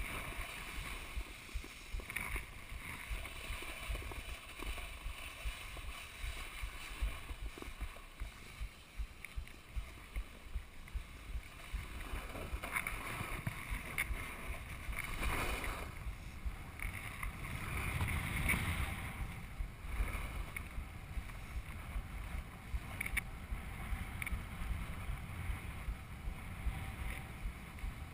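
A snowboard sliding and carving over packed snow, heard from a chest-mounted camera: a steady scraping rush with frequent small knocks from board chatter, mixed with wind on the microphone. It swells louder twice around the middle.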